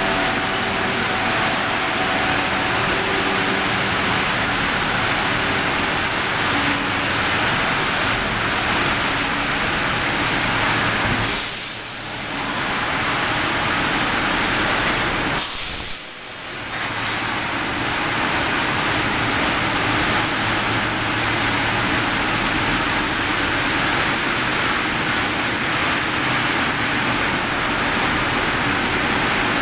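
Steady, loud machinery noise of an angle-steel section rolling mill running, with a faint hum in the first few seconds. The noise briefly drops away twice around the middle.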